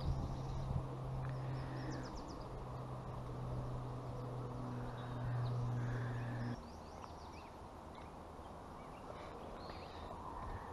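Small birds chirping in short, scattered calls over a steady low hum, which cuts off about two-thirds of the way through.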